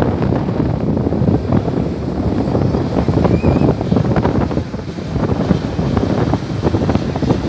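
Wind buffeting the microphone: a loud, gusty rumble that is heaviest in the low end.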